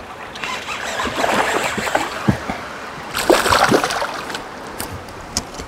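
A small hooked Kentucky bass splashing and thrashing at the water's surface as it is reeled in, loudest about three seconds in.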